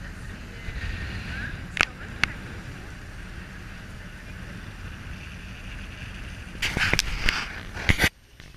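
Wind rushing over an action camera's microphone on a ferry's open deck, a steady low rumble with two sharp knocks about two seconds in and a louder cluster of knocks near the end, where the sound cuts off abruptly.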